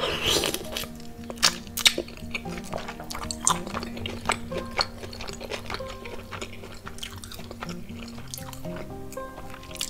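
Background music over close-miked eating sounds: a wet sucking noise as sauce is sucked off the fingers near the start, then chewing with frequent sharp wet clicks.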